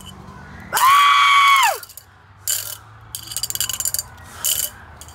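A long, high scream that holds its pitch and then drops off at the end, followed by a chain-link fence being shaken and rattled in several uneven bursts.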